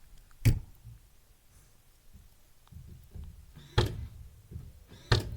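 Three sharp knocks: one about half a second in, one near four seconds and one near the end, with faint rustling between them.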